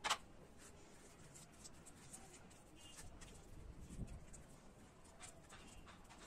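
Faint squishing, crumbling and scraping of wet multani mitti (fuller's earth) paste being crushed by hand against the inside of a small bowl. It opens with one short sharp sound, and there is a soft thump about four seconds in.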